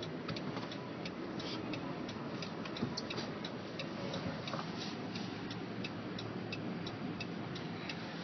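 Car's turn-signal indicator ticking steadily, about three clicks a second, over the steady low rumble of the car.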